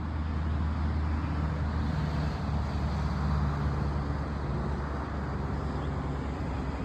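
Steady low rumble of motor traffic, with a deeper engine tone swelling for a few seconds in the middle as a vehicle goes by.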